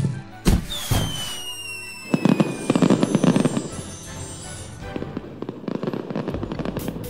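Cartoon firework sound effect: a sharp bang, a falling whistle, then a long spell of crackling sparkles that slowly thins out, over background music.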